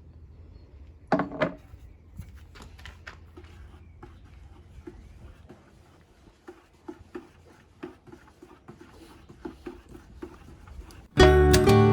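Quiet handling sounds: two louder knocks about a second in, then a run of small, scattered clicks and ticks. Acoustic guitar music comes in loudly near the end.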